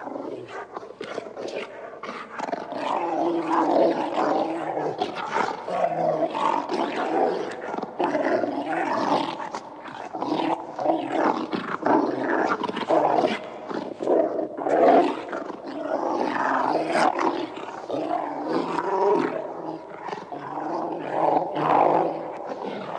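Several agitated dogs growling and howling at once, their calls overlapping in a continuous din without a break.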